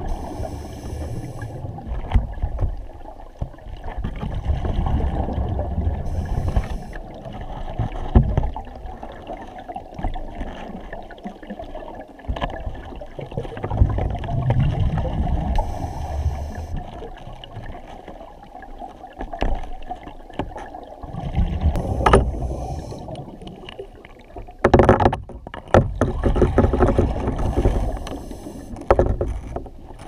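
Diver breathing underwater through a full-face mask: a rumble of exhaled bubbles alternating with breaths drawn through the demand valve, in cycles several seconds long. A few sharp knocks come through, about a third of the way in and again later.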